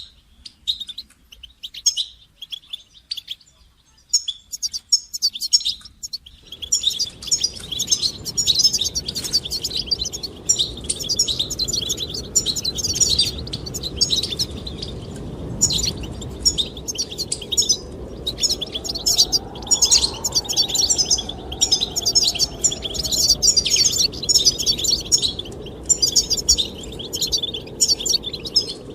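Goldfinches singing: rapid, continuous twittering song with short pauses. A steady rush of wind noise joins the song about six seconds in.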